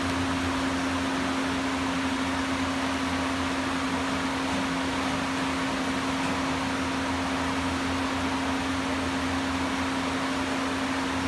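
Industrial thermoforming machine running at idle: a steady, even mechanical hum with one strong low tone over a constant hiss, unchanging throughout.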